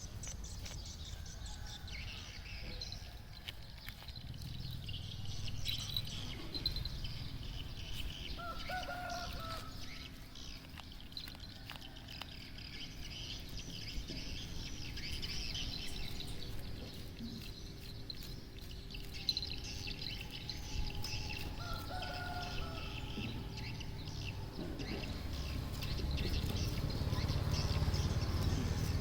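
Birds chirping, with two short pitched calls about nine seconds in and again near the end, over a steady low rumble.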